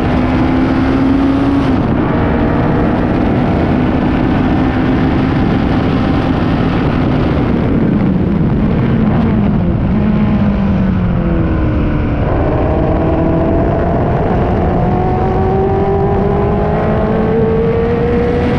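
Race car engine under way, heard onboard: its pitch falls in steps around the middle as it slows, then climbs steadily again under acceleration, over loud wind and road rush.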